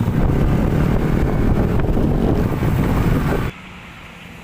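Wind buffeting the microphone over a motorcycle's running engine while riding. About three and a half seconds in it cuts off suddenly to a much quieter, steady low hum.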